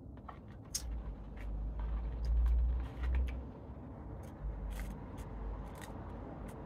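Close-miked eating of fried chicken and chips: irregular crisp crackles and clicks of chewing and handling the food, over low rumbling thumps and bumps.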